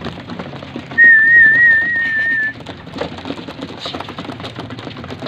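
A loud warbling whistle holds one pitch for about a second and a half, starting about a second in, among homing pigeons, with many light clicks throughout.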